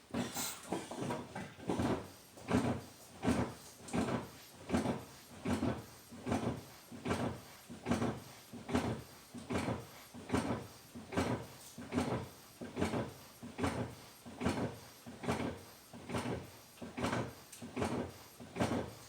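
Brake pedal of a 2015 Nissan Rogue pumped over and over at an even pace, about four strokes every three seconds, each stroke a short mechanical push-and-release. This pushes the caliper pistons back out against freshly fitted front brake pads until the pedal firms up.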